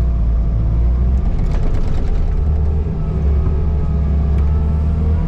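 Skid steer engine running steadily, a loud low drone.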